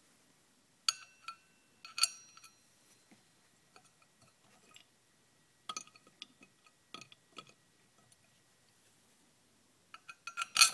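Bolts and small steel parts clinking against a steel chain sprocket as it is bolted onto a wheel hub. The metal rings briefly after each clink: a few separate clinks, then a quick run of them near the end, the loudest.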